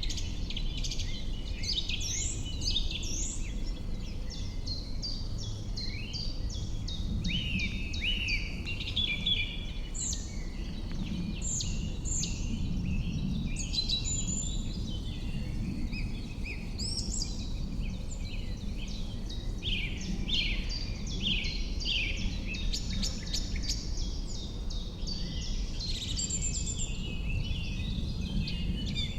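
Several birds singing at once, a dense stream of overlapping chirps and whistles, over a steady low background rumble.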